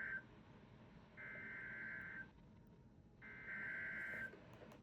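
Emergency Alert System SAME digital data bursts: the tail of one burst, then two more, each about a second long with about a second's gap between, a warbling pair of high tones.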